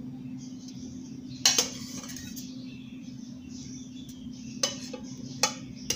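A few sharp clinks of a utensil against a bowl as salsa is served out, the loudest about one and a half seconds in and others near the end, over a steady low hum.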